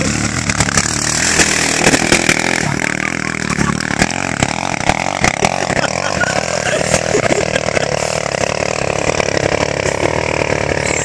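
Sport four-wheeler (ATV) engine running at full throttle as it climbs a steep sand hill, the engine note rising about four seconds in and then held high.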